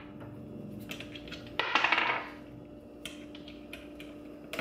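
Small metal Torx screws and a screwdriver being handled: scattered light metallic clicks, with a short rattling burst about a second and a half in.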